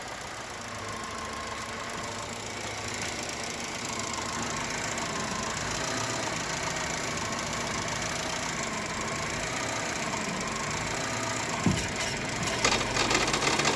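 Chevrolet Cobalt's 1.5-litre B15D2 petrol engine running steadily. Near the end a loud rattling clatter sets in, as if the engine is about to fall apart. The noise comes from the failed accessory-belt tensioner pulley assembly.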